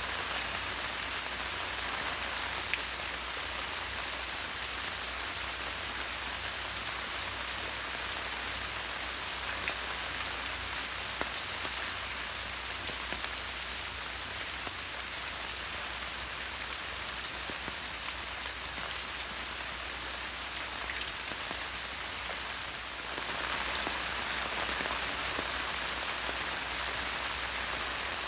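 Steady rain falling, with the ticks of single drops through the patter; it grows a little heavier near the end.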